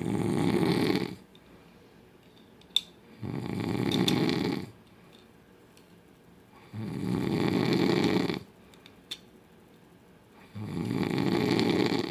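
A man snoring loudly in his sleep: four long snores, evenly spaced about three and a half seconds apart. A sharp click falls between the first two snores, and a fainter one comes later.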